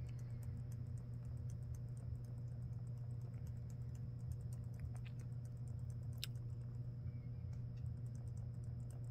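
Keyboard key on a Panasonic CF-54 Toughbook tapped rapidly over and over: F2 being pressed repeatedly during boot to get into the BIOS setup. A sharper click comes about six seconds in, over a steady low hum.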